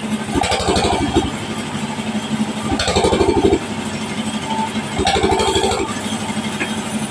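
Engine-driven sawmill saw running steadily while a log is fed through the blade. Its sound swells and eases three times, every couple of seconds.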